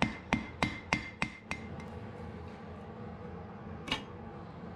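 Blacksmith's hand hammer striking a red-hot iron bar on the horn of an anvil: about six blows, roughly three a second, each with a ringing tone, stopping after about a second and a half. A single sharp knock follows near the end.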